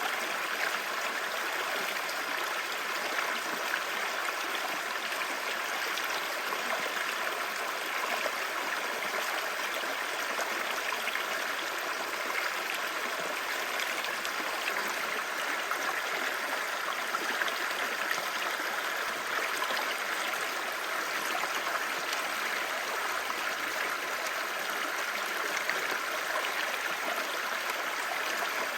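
Clear shallow stream babbling and splashing over rocks, a steady rush of running water.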